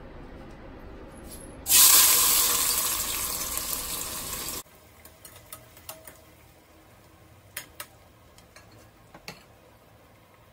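Sliced onions tipped into hot oil in a stainless steel pot, setting off a loud sizzle that fades over a few seconds and then cuts off suddenly. After that comes quieter stirring, with a few light clicks of the spatula against the pot.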